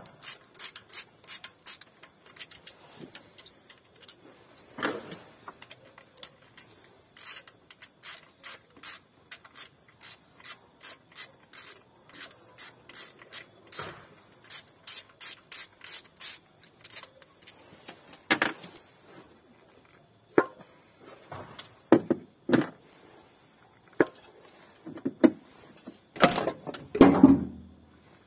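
Hand ratchet clicking at a steady two or three clicks a second as the bolts holding the ignition coils on the engine are undone. After that come irregular knocks and scraping as the coils are worked loose and pulled out of their spark plug wells, loudest near the end.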